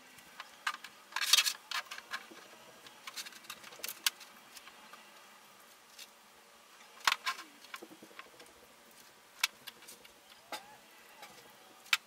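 Scattered light clicks, taps and small clatters of foam blocks, a plastic track and cords being handled and set down on a tabletop, with a short cluster of clatter about a second in and single sharper taps around seven and nine and a half seconds.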